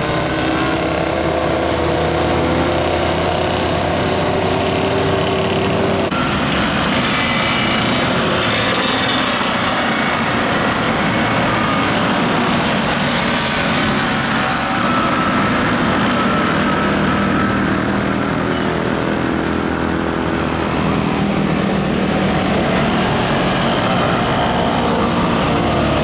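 Road traffic passing at close range: a tour bus's engine pulling with a slowly rising note for the first few seconds, then a steady mix of motorcycle and car engines.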